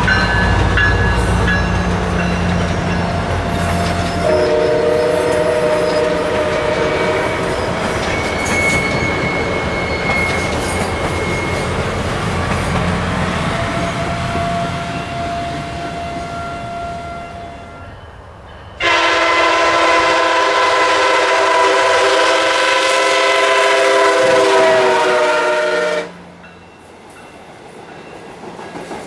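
Diesel-hauled MARC commuter train running by, with engine and rail noise. Its multi-chime horn sounds a short blast early on, then a long steady blast of about seven seconds about two-thirds of the way through that cuts off sharply. Near the end, wheel clicks over rail joints come up.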